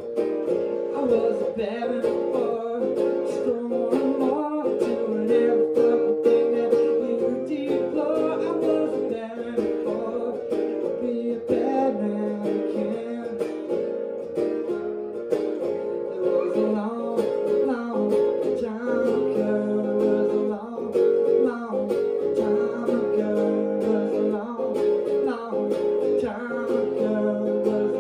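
Acoustic guitar strummed steadily as accompaniment, with a man singing over it.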